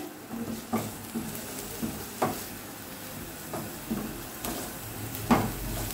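Chopped onions sizzling softly in oil in a nonstick frying pan as they are sautéed until soft, not browned. A silicone spatula stirring them gives a few light taps and scrapes against the pan.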